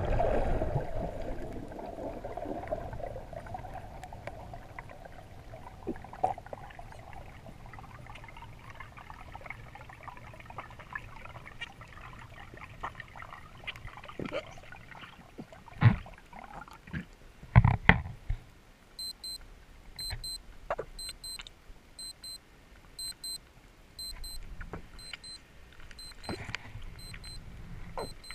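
Underwater sound during a dive: a rush of water fading over the first few seconds, then a low muffled hum with scattered clicks and a few loud knocks just past the middle. From about two-thirds of the way through, a high electronic double beep repeats about once a second, the alarm of a dive computer.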